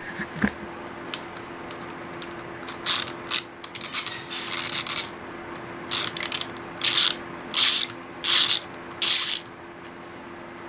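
Hand ratchet wrench ratcheting in short runs of clicks, about eight runs in a row, as bolts are turned during the teardown of a two-stroke paramotor engine. A light knock comes right at the start.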